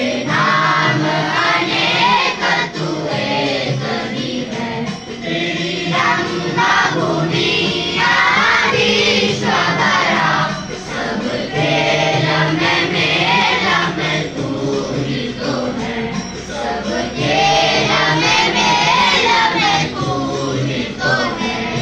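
A group of voices singing together in chorus, the melody moving over a steady held accompaniment underneath.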